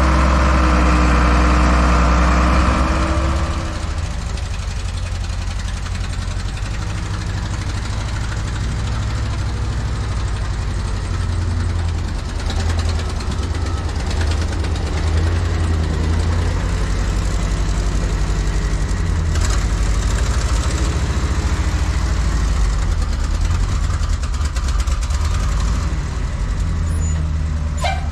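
Diesel engine of a Komatsu D41A crawler dozer running: loud for the first few seconds, then a steady, quieter idle.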